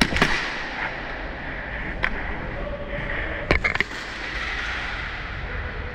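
Scattered sharp cracks of airsoft guns firing. There is a pair right at the start, one about two seconds in, and a quick cluster of three about three and a half seconds in, over a steady background rustle.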